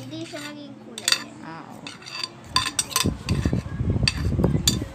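Wire whisk stirring a thick, creamy fruit salad in a glass bowl, clinking against the glass now and then. Lower thudding stirring noise grows louder in the second half.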